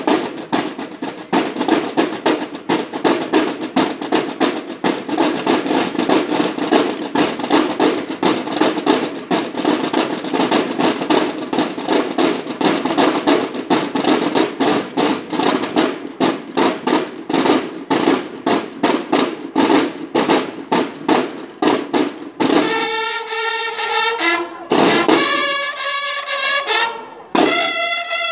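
Snare drums of a Mexican banda de guerra playing a rapid marching cadence together, with rolls. About 22 seconds in, the bugles come in with a brass call over sparser drum strokes.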